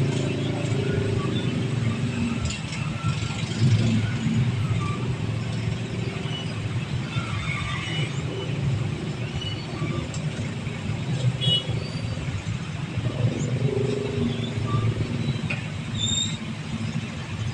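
A vehicle engine rumbling steadily, with a low hum that swells slightly now and then.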